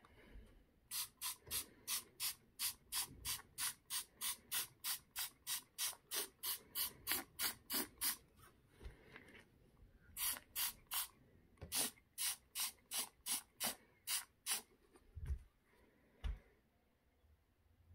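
Aerosol can of foaming stove glass cleaner sprayed in quick short hissing bursts, about three a second, in two runs with a pause of about two seconds between them. Two dull knocks follow near the end.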